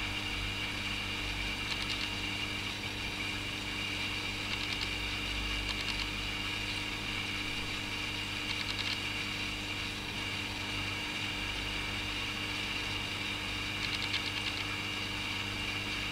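Steady motor hum with an even hiss from running aquarium equipment, with faint short crackles every few seconds.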